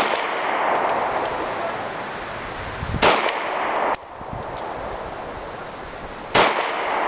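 FNX-45 .45 ACP semi-automatic pistol fired in slow single shots: one right at the start, one about three seconds in and one about six seconds in, each shot followed by a long echoing tail.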